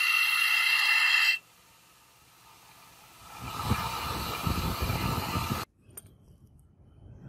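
Belt grinder's abrasive belt grinding a steel straight-razor blade made from a bearing: a loud hissing grind that stops abruptly about a second and a half in. After a quiet gap, a quieter stretch of belt noise with a low rumble follows and cuts off sharply about three-quarters of the way through.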